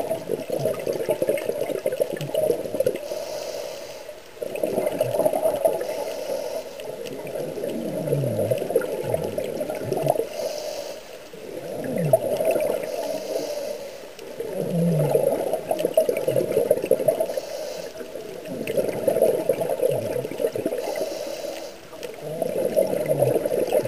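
A scuba diver's breathing through a regulator heard underwater: bursts of exhaled bubbles gurgling out of the regulator's exhaust about every four seconds, with a faint hiss of inhalation between them.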